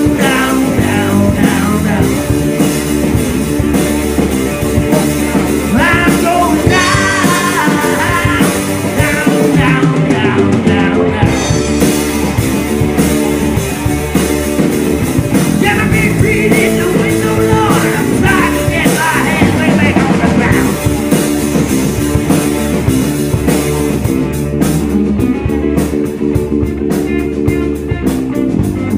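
Live rock band playing: electric guitars, bass, drums and keyboard, with a male singer's vocals coming and going over the band.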